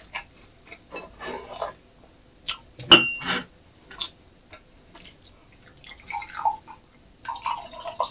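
Small clinks of a utensil against a drinking glass, with one sharp ringing clink about three seconds in. Near the end, beer poured from a bottle into the glass, splashing and fizzing.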